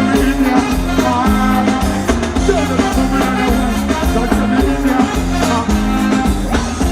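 Live reggae band playing, with a heavy bass line and a steady drum beat.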